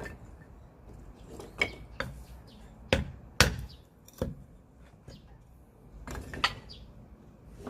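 Firewood being chopped: about six sharp wooden chopping strikes at irregular intervals, the loudest about three and a half seconds in.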